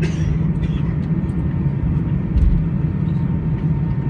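Steady low engine rumble with a faint constant whine, and a few small clicks over it.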